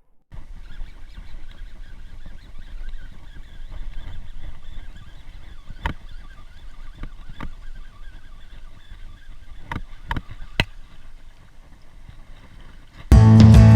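Water lapping with a low, uneven rumble and a few sharp clicks, from fishing while standing in the lake. Acoustic guitar music starts suddenly and loudly near the end.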